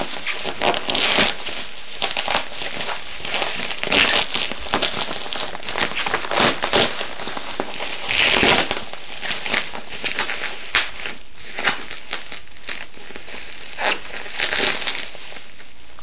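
Plastic packaging crinkling and rustling in irregular bursts as it is handled and pulled open, loudest about halfway through and again near the end.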